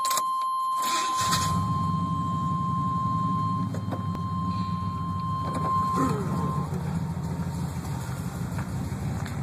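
A 1994 Chevrolet K1500's built 350 TBI small-block V8, with shorty headers and a Dynomax Super Turbo muffler, cranked and catching about a second in, then settling into a steady idle, heard from inside the cab. A steady single-pitch dash warning tone sounds along with it and stops about two-thirds of the way through.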